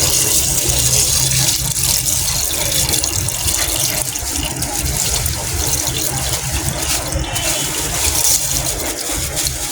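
Steady rushing hiss, as of a burner flame heating a pot of wax and oils as they melt, over a low steady hum.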